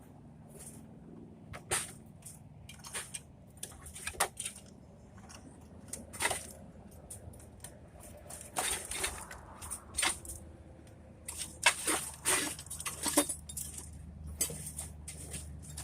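Irregular clicks, knocks and scraping of hands and tools working on a dismantled TV set, pulling out its wiring, with a busier run of clatter about twelve seconds in.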